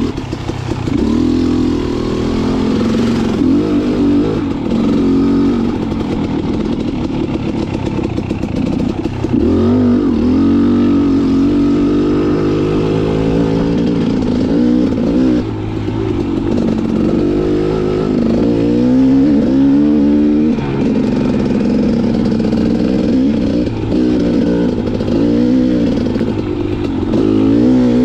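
KTM 300 XC two-stroke dirt bike engine being ridden, revving up and down over and over, its pitch rising and falling every second or two.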